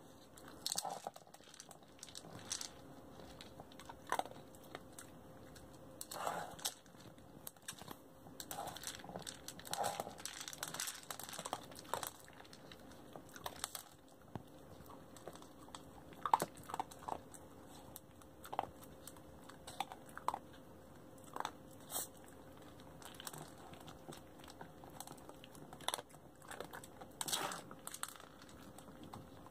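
A dog pushing a clear plastic treat-dispensing ball around a wooden floor, with irregular clicks and knocks from the ball and the dry kibble inside it. Mixed in is the dog crunching the kibble that falls out.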